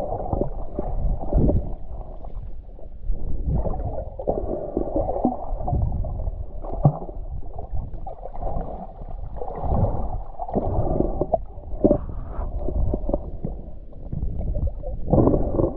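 Muffled gurgling and sloshing of water, dull and low, swelling and fading every second or so.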